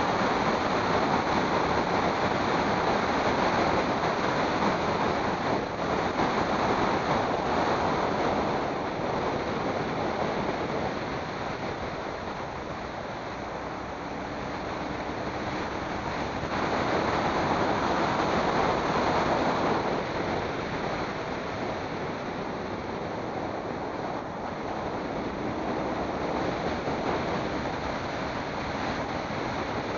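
Wind rushing over the microphone of a camera moving along a road: a steady rush that swells and eases, quieter for a few seconds near the middle.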